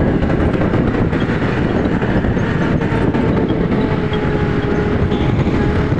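Riding noise on a moving scooter: a dense rush of wind and road noise over the scooter's running engine. A faint steady tone comes in about halfway through and stops near the end.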